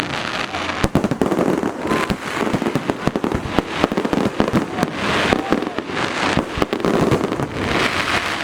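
Fireworks display heard at close range, 50 to 100 m from the launch site: a dense, unbroken barrage of sharp bangs and crackling from shells bursting one after another.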